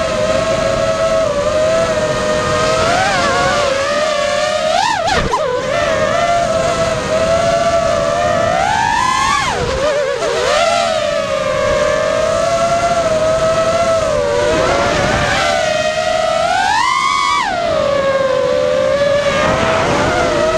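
Brushless motors and three-blade props of a 5-inch racing quadcopter (Lumenier 2206 2300KV motors, DAL 5x4.5x3 bullnose props) running as a steady whine. The pitch swoops up and back with throttle punches about five, nine and seventeen seconds in.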